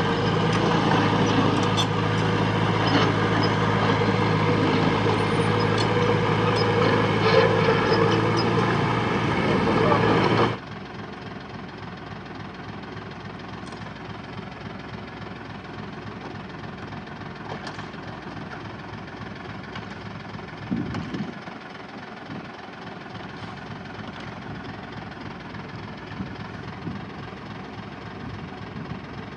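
Heavy diesel engine of the earthmoving machinery running loud and steady. A third of the way in it cuts abruptly to a quieter, more distant engine running on, with a few faint knocks.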